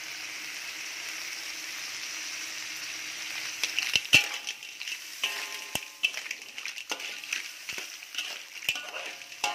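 Lala clams frying and sizzling in a wok. From about three and a half seconds in, stirring sets off repeated sharp clacks of shells and ringing metal clinks against the wok.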